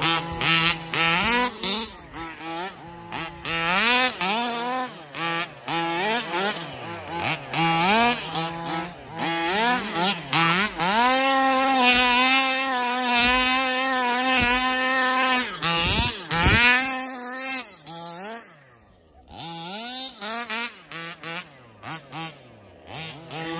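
Two-stroke petrol engines of 1/5-scale gas RC cars revving up and down in repeated bursts as the cars are driven hard, with a stretch of steady full-throttle running in the middle. Near the end the engines drop back briefly, then rev again.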